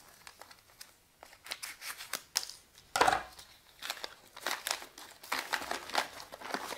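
Mountain House freeze-dried meal pouch crinkling as it is cut open with a knife and pulled open by hand: a run of irregular crackles, with a louder crunch about three seconds in.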